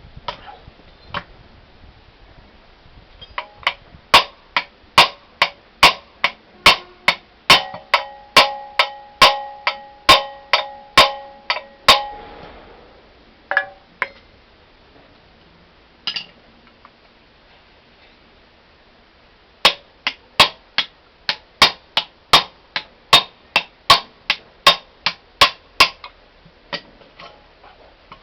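A hammer striking steel suspension parts in two long runs of steady blows, about two a second, while the front strut is taken apart and the steering knuckle knocked loose. Partway through the first run the struck metal rings with a clear tone.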